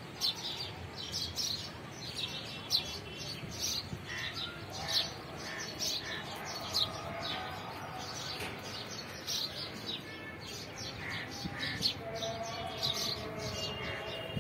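Many small birds chirping: a dense chorus of short, high chirps, with lower calls joining from about four seconds in.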